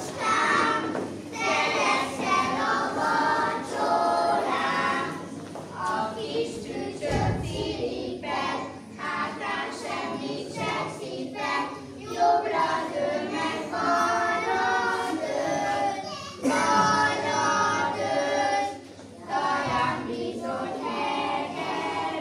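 A group of children singing a song together, phrase by phrase with short breaths between lines.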